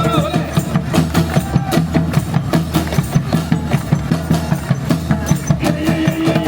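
Music with a steady, fast beat of about four strokes a second over a steady bass line.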